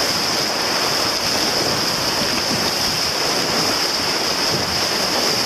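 Steady rushing of river whitewater rapids around the boat as it runs the rapid.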